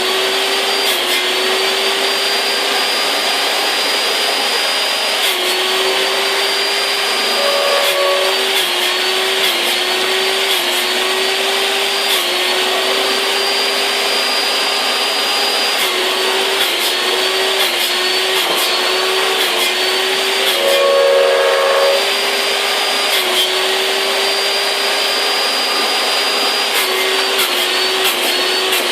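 High-speed electric motor of a wood-cutting saw running steadily with a loud whine. Its pitch sags briefly again and again, then recovers.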